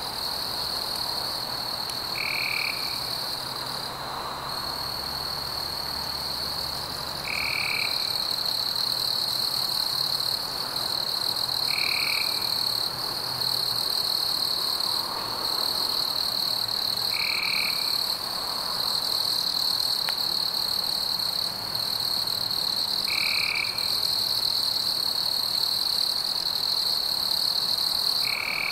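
Night insect chorus: a steady high-pitched trill, with a short call repeating about every five seconds.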